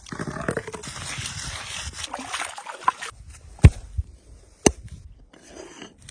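Rustling, wet handling noise, then two sharp knocks about a second apart, the first the loudest, with a few lighter clicks around them.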